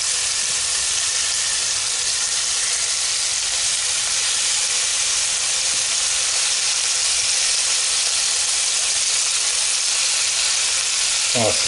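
Country-style pork ribs sizzling steadily as they sear in a hot multi-cooker pot.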